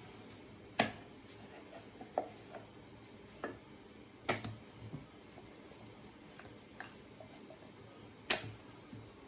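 Rolling pin rolling out a ball of wheat parotta dough on a rolling board, with a few sharp knocks of the pin on the board, the loudest about a second in, about four seconds in and about eight seconds in.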